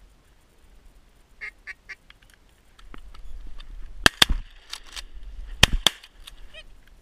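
Shotgun shots at ducks: two quick pairs of loud cracks a second and a half apart, with fainter cracks between them. Earlier come three short duck quacks.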